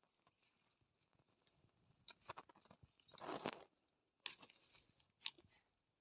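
Soil and potatoes being dug by hand: mostly quiet, with a few soft crunches, a short scrape through the earth about three seconds in, and two sharp clicks near the end.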